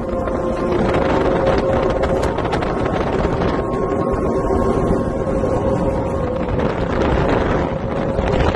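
Speedboat engine running steadily at speed, with wind buffeting the microphone.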